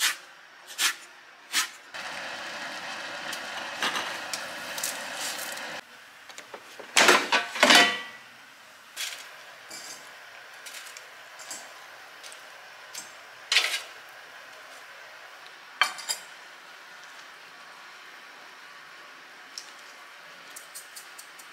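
A chef's knife chopping chives on a plastic cutting board, three strokes, then kitchen handling sounds: a loud clatter of cookware about seven seconds in, and a few sharp clicks as wooden chopsticks set fried nuggets on a metal wire rack.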